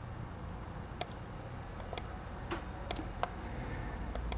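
About six sharp, unevenly spaced clicks of a computer mouse over a faint low steady hum.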